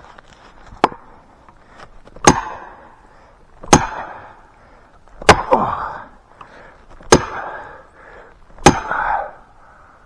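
Steel felling wedges being driven into the back cut of a spruce with hard, sharp strikes, six in all about every second and a half, the first lighter. Each strike has a short metallic ring. The wedges are lifting the tree against its lean.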